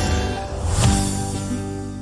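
Background music: a Bengali film song between sung lines, its instruments holding sustained notes that slowly fade after a last beat about a second in.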